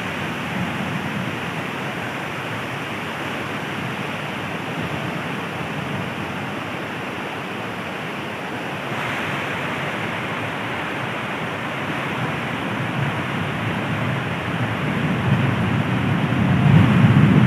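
Heavy rain pouring down in a steady hiss, swelling louder with a deeper rumble near the end.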